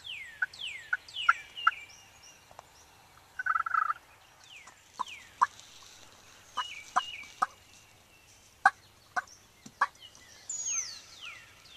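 Turkey call sounding a raspy run of yelps and many short, sharp clucks, meant to draw in a hen turkey, over several high whistled notes that fall in pitch.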